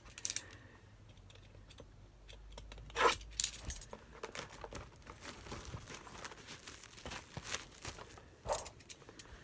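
Plastic wrap on a trading-card blaster box crinkling and tearing as the box is handled and unwrapped, in scattered rustles and small clicks, with the loudest tear about three seconds in.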